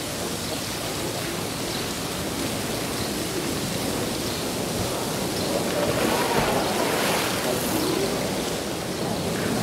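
Steady rushing of water, an even wash of noise, with faint voices about two-thirds of the way through.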